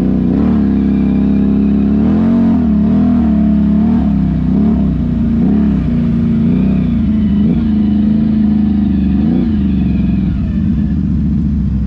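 ATV engine running, its pitch rising and falling every second or so as the throttle is opened and eased off.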